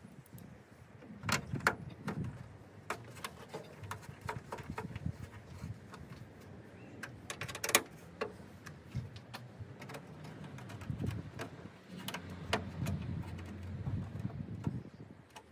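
Irregular small clicks and knocks of a hand-held Torx driver and plastic grille trim as bolts are screwed back into the underside of a car bonnet, the sharpest click about eight seconds in, over a low background rumble.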